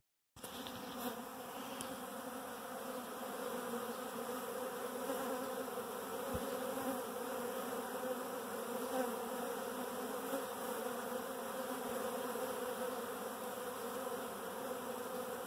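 A large mass of honey bees buzzing: a steady, unbroken hum of thousands of wings that cuts in a moment in.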